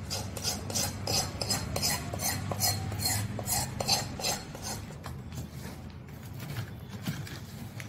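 Metal spoon stirring crisp fried wheat-flour pieces through sticky jaggery syrup in a stainless steel bowl: repeated scraping and clinking against the steel, about three strokes a second, thinning out after about five seconds.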